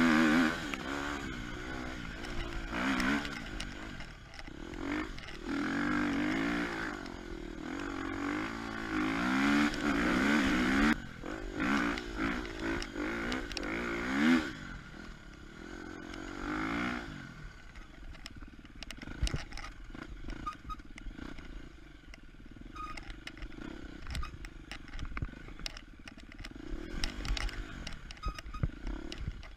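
KTM 250 EXC-F single-cylinder four-stroke enduro engine revving up and down repeatedly as the bike is ridden. About halfway through it settles to a quieter, lower running, with frequent clatter and knocks over it.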